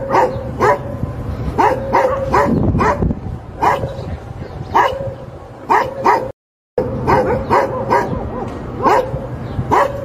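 Labrador retriever barking repeatedly: short, sharp barks in pairs and quick runs over a steady low background rumble, with a brief cut to dead silence about six seconds in.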